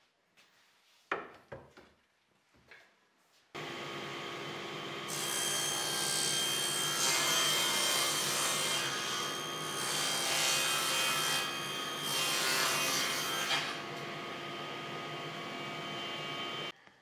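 A few knocks of wooden boards being handled, then a table saw starts running. Plywood is fed through the blade for several seconds, the cutting louder and hissier than the motor alone, and the sound stops suddenly near the end.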